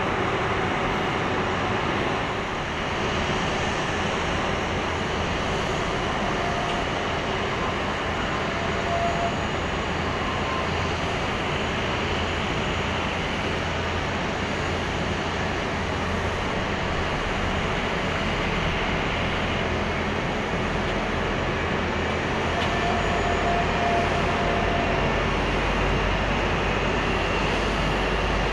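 Steady rumble and whine of a Boeing 787-8 under pushback, with the tow tug's engine, a continuous even noise that grows a little louder and deeper in the last few seconds.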